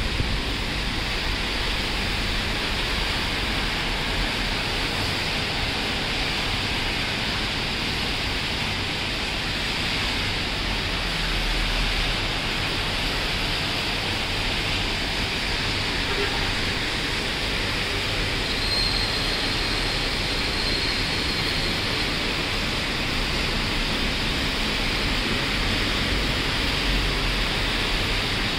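Rain falling: a steady, even hiss with no letup.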